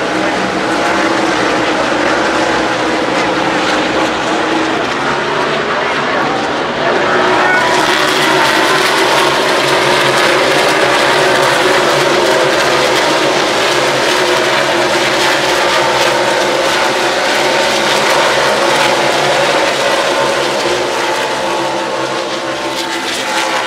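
NASCAR stock cars' V8 engines running as cars pass along the front straight. The sound is a loud, steady mix of several engine notes that swells about seven seconds in and eases off near the end.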